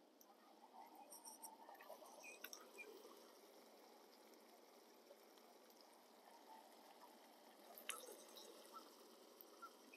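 Near silence: faint bubbling of water boiling in a pot on a camp stove, with a few small clicks about a second in and again near the end.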